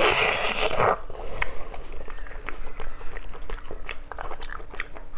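Loud wet sucking bite into a glistening braised meat joint in about the first second, followed by soft wet chewing and lip smacks.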